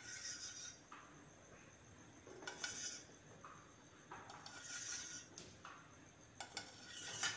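A steel spoon clinking and scraping against a stainless steel pressure cooker and a plastic jar, in a few faint, separate clatters.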